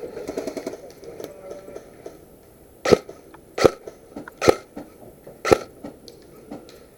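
A run of sharp knocks, about one a second, starting about three seconds in.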